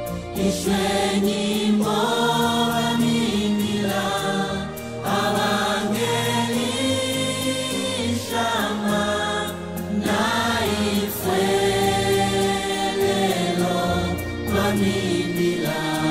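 A praise-team choir singing a gospel song in Bemba in several voices, over steady bass notes and a percussion beat.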